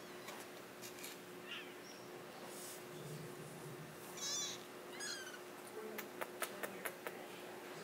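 Four-week-old kittens mewing: a high-pitched wavering mew about four seconds in, then a shorter falling one. A few sharp clicks follow near the end.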